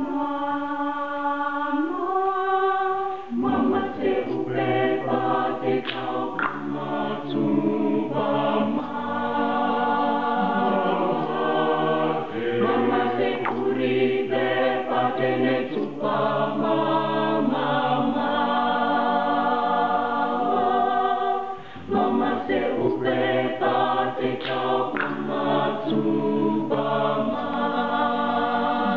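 A Namibian a cappella choir singing. A single voice holds a note and steps up to a higher one, then about three seconds in the full mixed choir enters in harmony with deep bass parts and keeps singing, with a short dip about three quarters of the way through.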